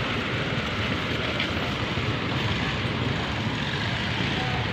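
Steady road traffic noise from cars and motorcycles running along the street.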